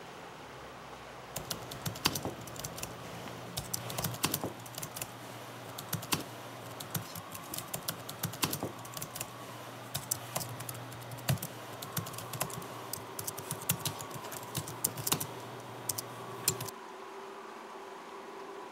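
Typing on a keyboard: irregular key clicks in quick runs and pauses, over a low steady hum. The typing and the hum stop together shortly before the end.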